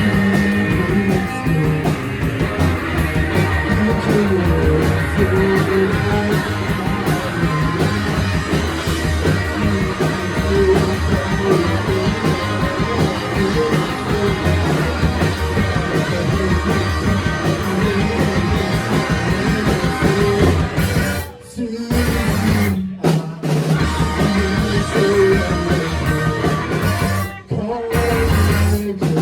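Live rock band playing a guitar-driven song with bass and drums, loud and dense. The whole band stops dead briefly a couple of times, about 21–23 seconds in and again near the end, then crashes back in.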